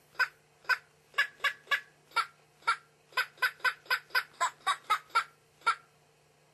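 Animated plush chicken toy sounding a string of short, sharp clucking calls through its small speaker, about four a second in the middle stretch, over a steady low hum.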